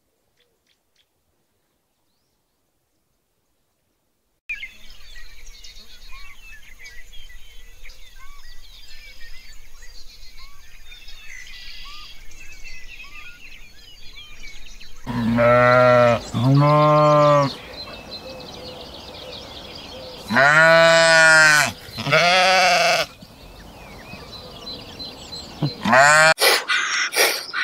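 Sheep bleating: four loud, drawn-out bleats in two pairs. Before them there are a few seconds of silence, then faint short chirps over a steady high hiss.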